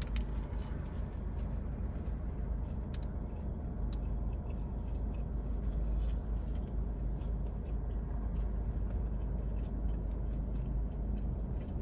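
Steady low rumble of vehicle noise heard from inside a parked car, with a few faint clicks.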